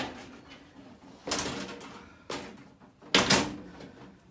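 The red sheet-metal hopper of a sandblasting cabinet clattering and scraping against the cabinet's metal frame as it is shifted into place underneath, four times, the loudest about three seconds in.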